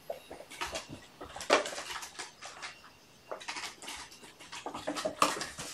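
Kittens scrambling and play-fighting, with irregular light clicks, taps and rattles of small objects knocked about and the patter of paws.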